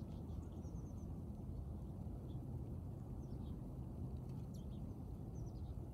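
Small birds giving short, high chirps every second or so over a steady low outdoor rumble.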